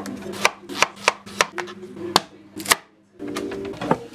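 Kitchen knife chopping a courgette on a cutting board: a quick run of sharp strikes, several a second, that stops about three seconds in.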